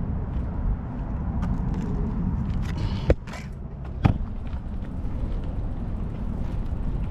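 Wind rumbling on the microphone, with two sharp knocks about a second apart near the middle.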